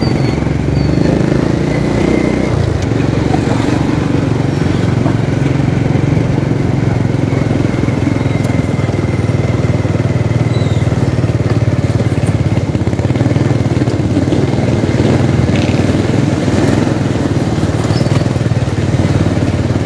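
A vehicle's engine running steadily while underway, with road and traffic noise; its note drops lower about two and a half seconds in, then holds steady.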